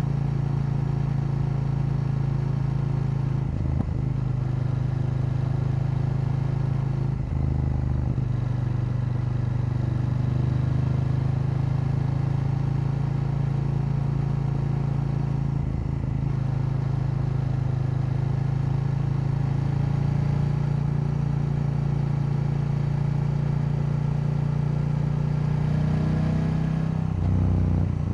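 KTM 890 Duke's parallel-twin engine running steadily while riding, with a brief change in pitch a few times and a rise and drop in revs near the end.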